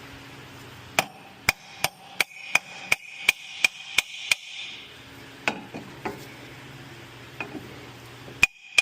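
Hammer striking the metal of a lower control arm to knock it and its bolt into place: a quick run of about ten ringing blows, about three a second, then a few single taps.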